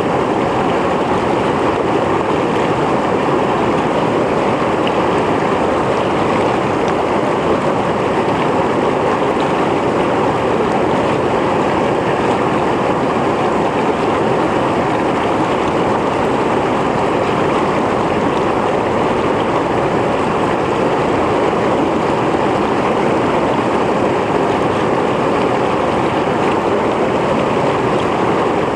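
Mountain stream flowing over rocks, a steady, dense rush of water without change.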